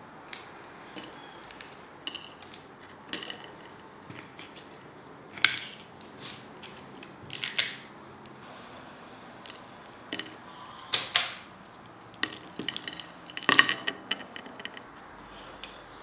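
Walnut shells cracking in bare hands, with shells and nuts clicking on clay dishes: scattered sharp clicks and short crackling crunches, the loudest crunches about five, seven and a half, eleven and thirteen seconds in.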